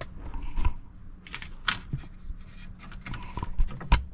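Irregular rustling and light clicks of a radar detector's hardwire power cord being pulled by hand along plastic car interior trim, with a few sharper taps.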